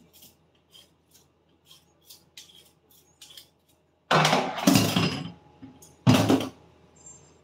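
Kitchen knife cutting a vegetable on a board: light, irregular taps, two or three a second. About four seconds in come two much louder bursts of clatter, the second about two seconds after the first.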